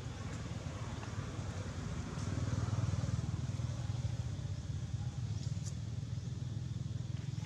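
Low, steady rumble that grows louder about two seconds in, with a few faint clicks.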